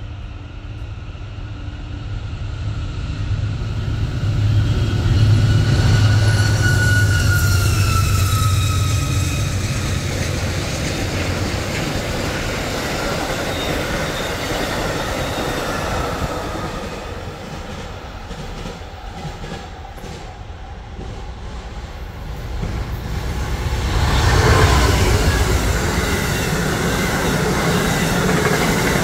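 Amtrak passenger trains passing at speed, locomotive and cars rumbling and clattering over the rails. A pitched whine falls in pitch as the first train goes by about six to nine seconds in. The sound dips, then a second train sweeps by loudly about twenty-four seconds in.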